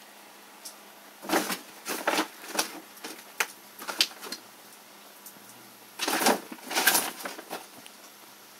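Stiff woven-plastic bag crinkling and rustling as a cat pounces on it and paws at it. The crackles come in two flurries: a run of crackles from about a second in, then a louder burst around six seconds in.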